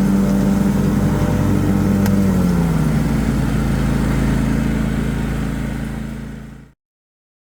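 Lawn mower engine running steadily while mulching leaves. Its pitch drops a little over two seconds in, and the sound fades out and cuts off near the end.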